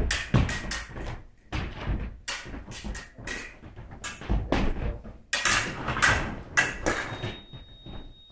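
A run of irregular knocks and clacks, hard objects being handled and set down, several a second at uneven loudness.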